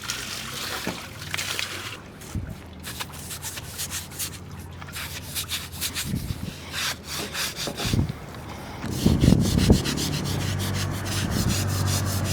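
Hand scrubbing on the steel boat's surface: a brush rubbing back and forth in short strokes that turn quick and rhythmic in the second half. A steady low hum runs underneath.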